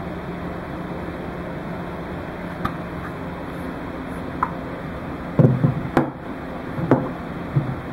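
Hands handling a droid dome: a couple of small clicks, then a cluster of knocks and bumps against it in the second half, over a steady background hum.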